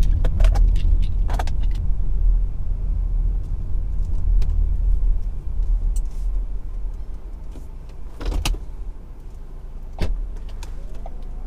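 Car-cabin road and engine rumble while driving, which drops off about halfway through as the car slows and pulls up. A few sharp clicks and knocks from inside the car, the loudest about 8 seconds in.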